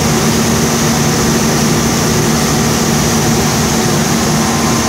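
Unique 2722 CNC machining center running with its spindles spun up, a steady mechanical hum with a constant high whine, the machine running without cutting yet.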